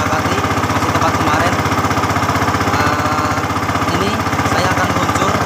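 Small boat engine running steadily at cruising speed, with a rapid, even firing beat. A man's voice is partly drowned beneath it.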